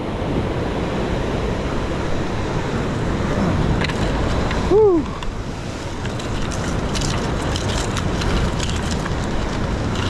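Ocean surf washing against the rocks, with wind buffeting the microphone. About halfway through there is one short pitched sound that rises and falls, and light clicks follow in the second half.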